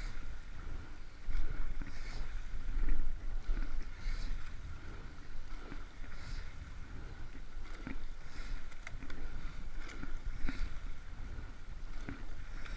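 Rowing eight under way in a practice piece: the blades catch and clear the water in a steady rhythm, about one stroke every two seconds, with occasional knocks of oars in their gates over a low steady rumble of water and wind.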